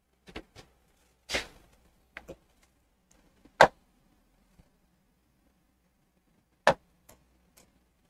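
Scattered sharp taps and clicks on a touchscreen display as its pen tool and colour palette are worked, about eight in all, with two loud ones, one about a third of the way in and one near the end.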